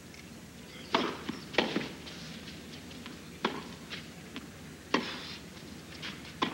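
Tennis ball struck by rackets in a rally: five sharp hits, the first two close together and the rest about a second and a half apart, with fainter bounces and footfalls on the court between them.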